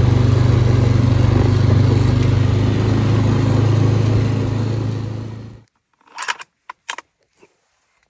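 A four-wheeler (ATV) engine running steadily with a strong low hum, easing off slightly near the end before cutting off abruptly. A few sharp clicks follow.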